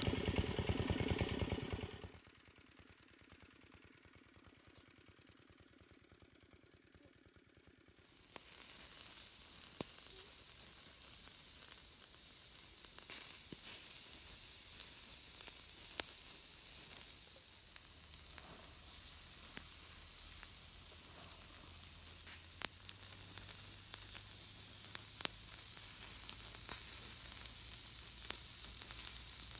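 A loud low rumbling noise that cuts off about two seconds in, then after a few quiet seconds, fat from a spit-roasting duck sizzling and crackling on hot embers, with steady hiss and frequent sharp pops.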